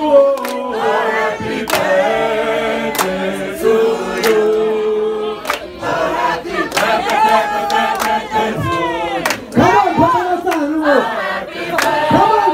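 A crowd of guests singing together in unison and harmony, with long held notes and sharp claps now and then.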